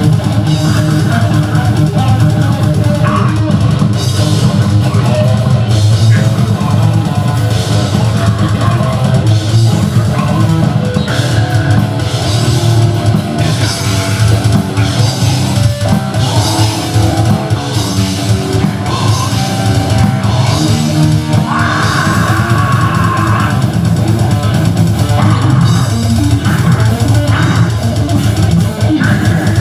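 A live heavy metal band playing loudly: distorted electric guitar, bass guitar and a drum kit.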